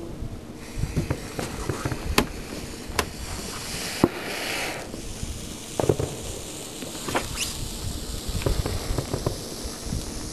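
Fireworks fountain ('volcano') catching about half a second in and spraying sparks with a steady hiss. Sharp pops and crackles are scattered throughout, with a short rising whistle about seven seconds in.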